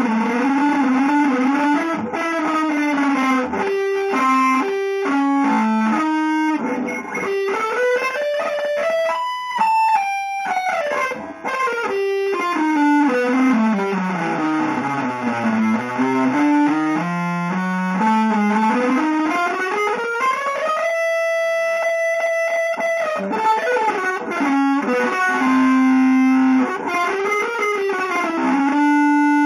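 Electric guitar played through effects: fast single-note lines, with a long run stepping down in pitch and then climbing back up, followed by a single note held for about two seconds.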